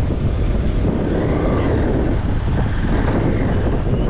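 Strong wind buffeting the microphone over rough surf, with an engine's hum rising and falling faintly through the middle.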